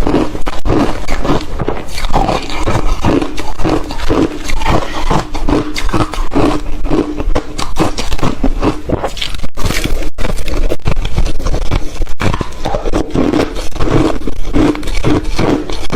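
Ice being bitten and chewed close to the microphone: loud, dense, irregular crunching and cracking with no pause.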